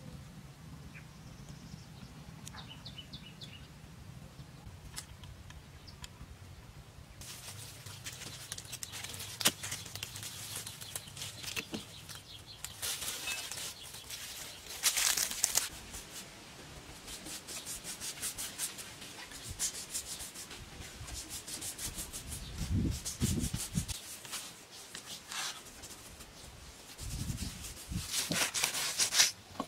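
Faint bird chirps, then from about seven seconds in a long run of rustling and scraping: leafy branches and twigs being pushed aside and handled, later a hand rubbing across concrete, with a few dull thumps.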